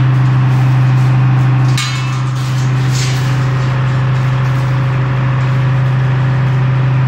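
An engine running steadily, a constant low drone, with a few sharp knocks; the sound breaks briefly about two seconds in.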